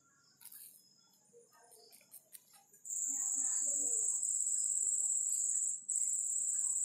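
Near silence with a few faint soft sounds, then about three seconds in a steady, high-pitched insect trill starts. It breaks off for a moment near the end and then carries on.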